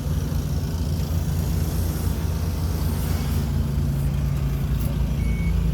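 Semi truck's diesel engine idling steadily, a low, even drone. A faint high beep sounds near the end.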